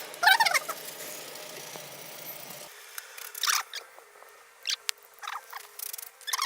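A cloth wiping metal with methylated spirits, squeaking: one longer gliding squeak about a quarter second in, then short scattered squeaks.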